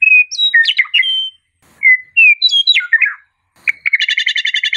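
Western meadowlark singing: two runs of flute-like whistled notes that slide up and down, followed near the end by a fast, even chattering rattle of about a dozen notes a second.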